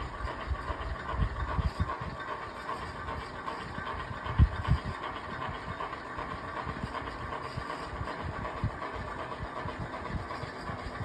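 Old electric fan running with a steady whirring hum, over an irregular low rumble of thumps, one stronger about four and a half seconds in.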